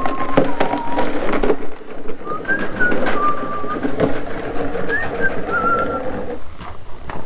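Casters of a wheeled engine dolly rolling under a 5.0L V8, a steady rumble with high squeaking notes that slide in pitch in short groups. The rolling stops a little before the end.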